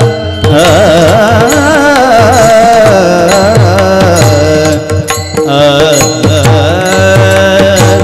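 Devotional kirtan music: a voice holds a long wordless melodic run, its pitch wavering and gliding, over steady rhythmic drum strokes and instrumental accompaniment.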